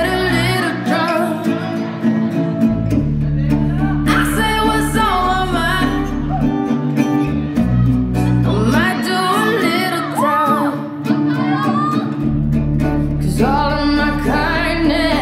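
A recorded song with singing over a deep, sustained bass line; the bass drops out twice, for a couple of seconds each time.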